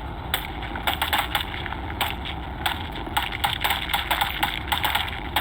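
Rapid, irregular rifle shots from several shooters firing at a drone, over a steady low engine rumble. The shots begin about a third of a second in and come several to the second.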